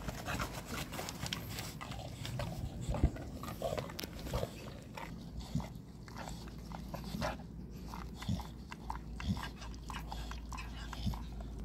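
American Bully dog chewing and gnawing on a rubber chicken toy, irregular clicks and crunches of teeth on rubber.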